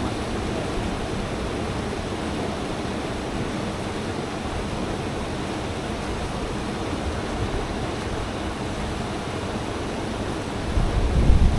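A RIB under way: a steady rush of engine, water along the hull and wind on the microphone, with heavier low wind buffeting near the end.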